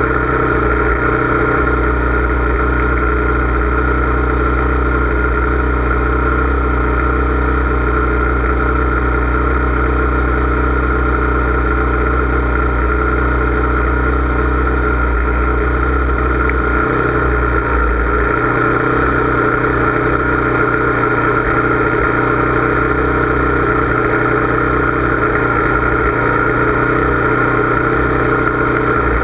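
Motorcycle engine idling steadily. A deep low rumble turns uneven about two-thirds of the way through.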